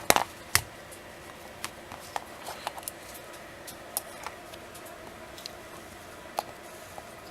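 Small clicks and taps from parts and a measuring tool being handled on a workbench: a few sharp clicks in the first second, then scattered light ticks.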